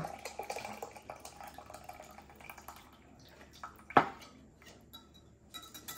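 Wire whisk scraping seasoned pan juices across an aluminium sheet pan while the juices trickle into a glass measuring cup, with faint ticks throughout and one sharp tap about four seconds in.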